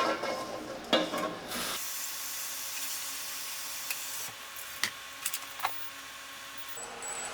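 Food sizzling in a frying pan: a steady hiss that starts abruptly about two seconds in and cuts off near the end, with a few light clicks of a utensil.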